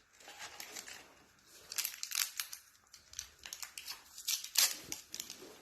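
Small plastic accessory wrapper crinkling and tearing in irregular bursts as it is opened by hand.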